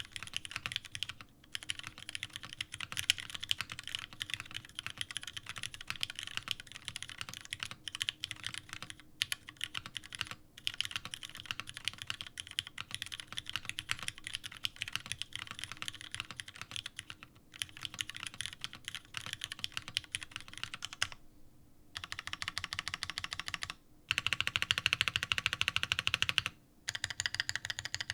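Typing on a mechanical keyboard with lubed Cherry Retooled Black linear switches in an O-ring-mounted aluminium plate, under OG Cherry doubleshot keycaps: a steady stream of key strokes with a few short pauses. About three-quarters through comes a faster, louder run of evenly spaced strokes.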